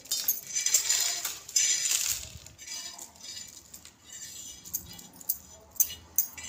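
Crisp fried ajwain sev sliding off a plate and dropping into a stainless steel plate. It makes a dry crackling rustle with light clinks against the steel, loudest in the first two seconds, then quieter with a few scattered clicks.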